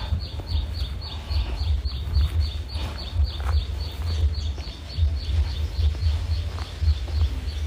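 Wind buffeting the microphone as a low, uneven rumble, over a steady series of rapid high chirps, about four to five a second, from a small bird or insect in the trees.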